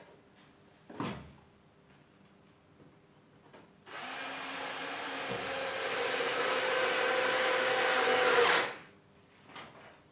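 Homemade disc sander driven by a washing-machine motor runs for about five seconds, growing gradually louder, then stops. A short knock comes about a second in.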